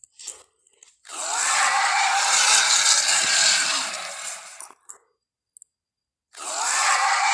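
Creature sound effects for Gorosaurus, made from Torvosaurus dinosaur sounds: two long, harsh, rasping calls, the first lasting about three and a half seconds and the second starting near the end, with a few short clicks just before the first.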